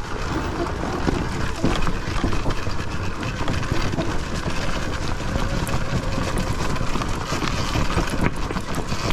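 Ride noise from a Sur-Ron Ultra Bee electric dirt bike moving over rough trail: wind buffeting the microphone and tyres on dirt, with frequent small knocks and rattles from the bike. The electric motor itself adds little of its own.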